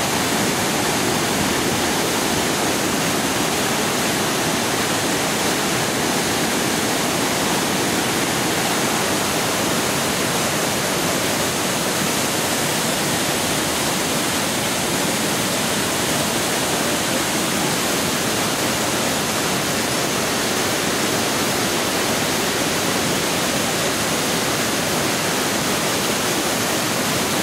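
Iguazu Falls: a loud, steady rush of a massive waterfall, a dense, even wash of falling water with no let-up.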